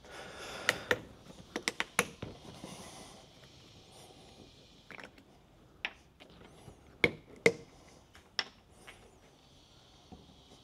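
Workshop handling sounds: a series of sharp clicks and metal knocks from fork parts and tools being handled and set down. There is a quick cluster near the start and two louder knocks about seven seconds in.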